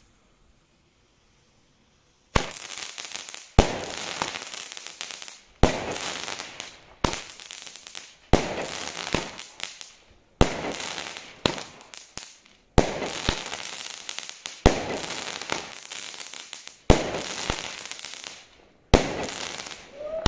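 Xplode Rap 9-shot fireworks battery firing. About two seconds in, sharp bangs begin, one roughly every one to two seconds, each trailing off into a dense crackle as the stars burst into crackling effects.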